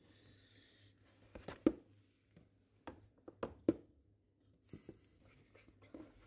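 Paper shopping bag rustling and crinkling as a hand rubs a cat lying inside it, with a few sharp crackles about one and a half and three and a half seconds in.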